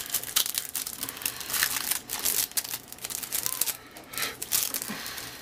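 Baseball cards being handled and laid down on a table: irregular rustling and crinkling with light taps.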